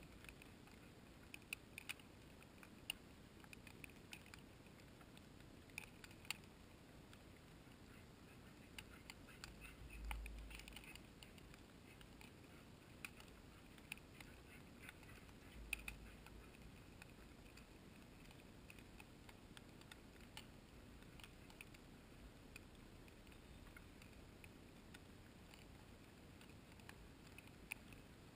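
Near silence with scattered faint clicks and ticks, and two brief low thumps partway through.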